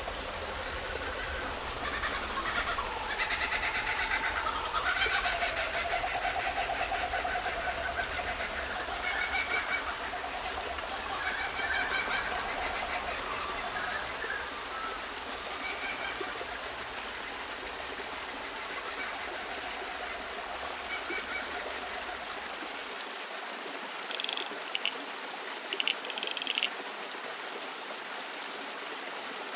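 Birds calling and chirping over a steady background hiss, with a short run of high chirps near the end.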